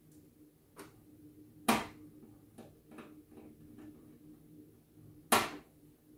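Screwdriver and screws clicking and knocking against the metal frame of a PC case while a graphics card's bracket screw is fitted, with two loud sharp knocks about two seconds in and near the end. A faint steady hum runs underneath.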